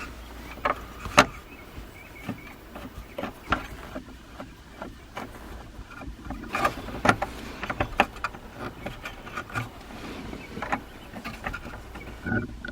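Irregular clicks, taps and knocks of plastic dash trim, the A/C control switch and screws being handled and fitted back into a Jeep TJ dashboard, with the loudest knock about a second in.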